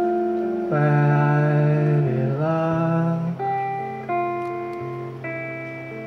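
A slow song played live on acoustic guitar, with long held notes that change about once a second.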